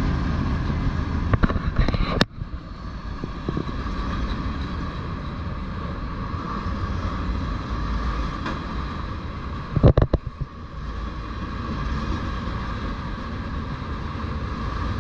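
Freight train of autorack cars rolling past over a grade crossing: a steady rumble and clatter of steel wheels on the rails. A cluster of loud knocks comes about ten seconds in.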